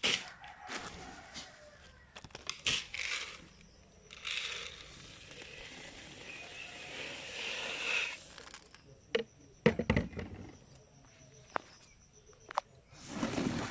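Irregular rustling and crackling handling sounds, like loose plant material being stirred or crumpled, with a few sharp clicks and a thud about ten seconds in.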